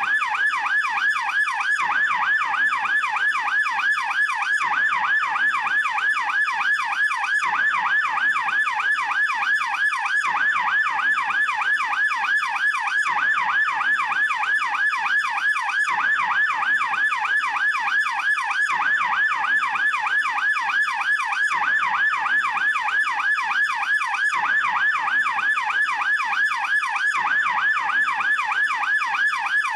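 German police yelp siren wailing in rapid, unbroken up-and-down sweeps, several a second, at a steady level.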